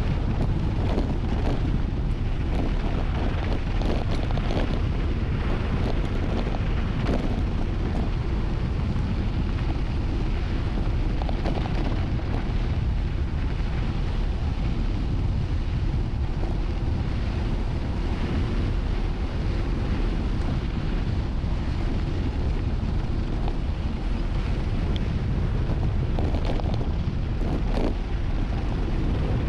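Heavy wind buffeting a GoPro's microphone on a fast mountain-bike descent, a steady low rush. Scattered rattles and knocks from the bike come through in the first several seconds and again near the end.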